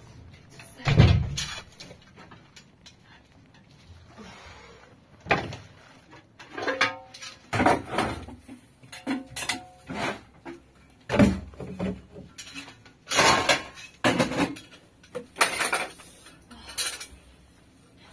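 Dishes and kitchen containers being handled and set down on a shelf: a run of irregular knocks and clatters, the loudest about a second in.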